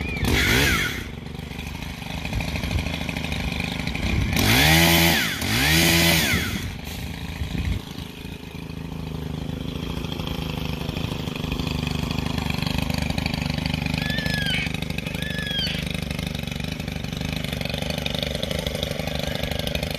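Stihl HT 131 pole saw's small 4-MIX engine running steadily, revved up and back down three times in the first seven seconds, then running on at an even speed.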